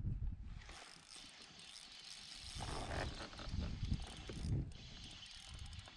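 Fishing reel being reeled in, a fast run of fine ratcheting clicks, with a few low thumps from the kayak partway through.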